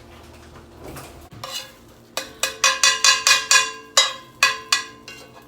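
A metal utensil clinking and scraping rapidly against a frying pan while eggs with cheese are stirred: about a dozen quick ringing strikes, roughly four a second, starting about two seconds in.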